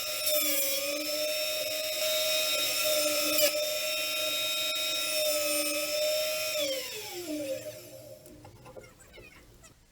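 Electric power tool's motor running with a steady high whine, then switched off about seven seconds in, its pitch falling as it spins down.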